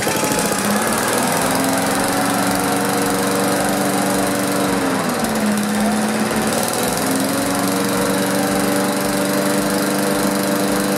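Briggs & Stratton 3.75 hp push-mower engine running again on its newly replaced ignition coil. Its speed dips for about two seconds midway, then picks back up.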